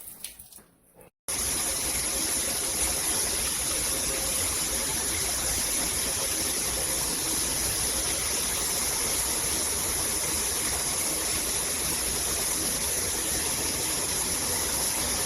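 Water spraying steadily from a shower head, starting abruptly about a second in.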